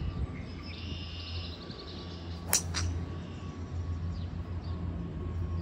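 A 3-wood striking a golf ball off the tee: one sharp crack about two and a half seconds in, a clean strike right out the middle of the clubface.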